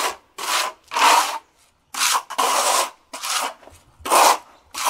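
Steel trowel scraping fresh stucco texture coat across a stucco wall in about eight short, separate strokes, feathering the new texture out over a patched area.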